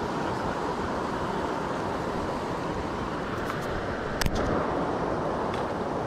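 Steady rushing background noise with no distinct pitch, and one sharp knock a little over four seconds in.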